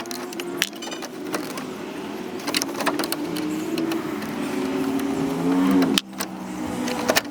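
A small electric motor runs with a whine that drifts up and down in pitch, with sharp clicks along the way. It stops abruptly about six seconds in and starts again shortly after.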